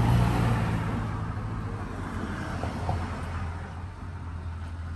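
Street traffic: a motor vehicle's engine rumble, loudest at the start and fading over the next couple of seconds, over a steady hum of road noise.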